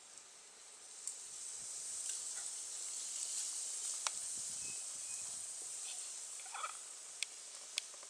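Steady high-pitched hiss of an insect chorus in the grass, swelling about a second in and easing near the end, with no distinct chirping rhythm. A few sharp clicks sound over it.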